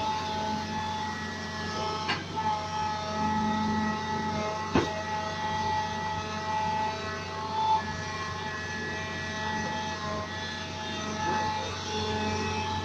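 Hitachi hydraulic excavator's diesel engine and hydraulics running steadily under load while it digs, with a steady drone and a high steady tone. Two sharp knocks, about two and five seconds in, the second the loudest.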